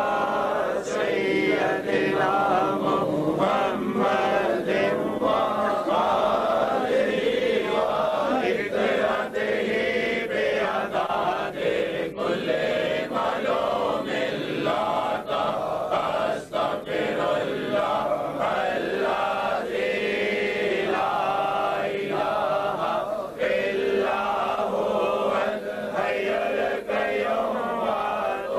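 Many men's voices chanting together in unison, a devotional zikr recitation sung by a seated congregation.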